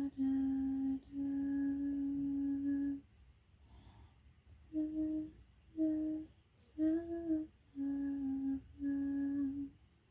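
A voice humming a slow, wordless tune: two long held notes, a pause of about two seconds, then a string of five shorter notes.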